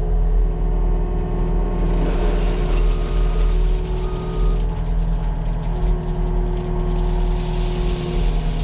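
Diesel engine of a compact earthmoving machine running steadily under work as it carries its first load of stone, with a strong low drone and more hiss coming in about two seconds in.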